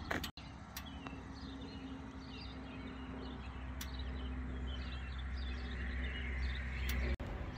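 Outdoor ambience: small birds chirping over a steady low rumble, with a few faint clicks.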